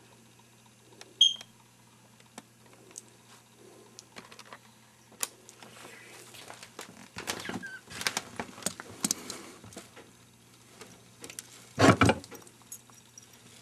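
Handling noise from a camcorder being moved about: scattered clicks and rustling, busiest in the middle. A short high chirp comes about a second in, and a loud knock near the end.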